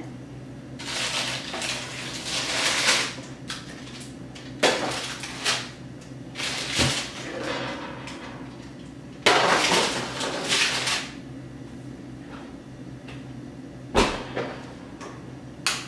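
Metal baking sheets being taken out of an oven and set down on a stainless-steel range top: several sharp clattering knocks of the pans, with longer rustles of the parchment paper lining them.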